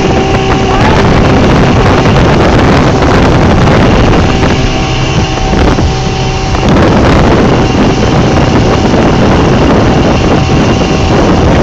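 Speedboat under way, its engine running steadily beneath heavy wind noise on the microphone. The sound eases slightly for a couple of seconds about five seconds in.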